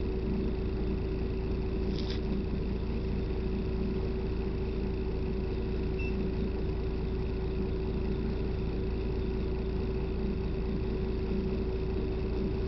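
Steady drone of a bus's engine and running gear heard inside the passenger cabin, with a constant hum. A faint click about two seconds in.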